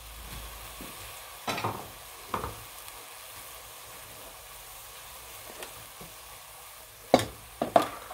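Grated carrot, onion, garlic and ginger frying in a stainless steel pot, a faint steady sizzle. Two short knocks come in the first few seconds, and a quick run of sharper, louder knocks comes near the end.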